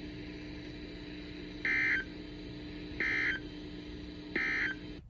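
Emergency Alert System end-of-message signal: three short bursts of SAME digital data tones, about 1.3 seconds apart, marking the close of the alert, over a steady low hum.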